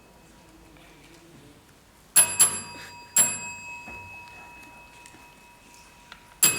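A small bell struck four times: a quick pair, another strike a moment later, and one more near the end, its clear ringing tone carrying on between strikes.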